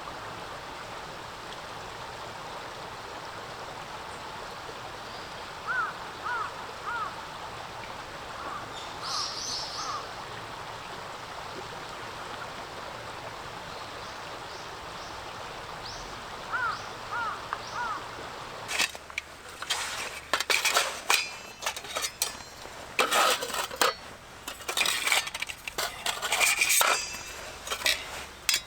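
A small stream running steadily, with a few short bird chirps. About two-thirds of the way in, metal camp gear starts clinking and knocking as it is handled.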